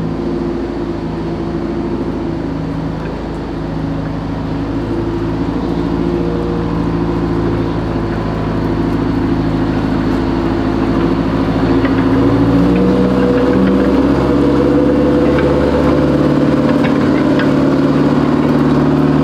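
The Grant tank's Detroit Diesel 8V71T engine, a two-stroke V8 turbo diesel, runs steadily during a stress test. About two-thirds of the way through it rises in pitch and gets a little louder as the revs come up.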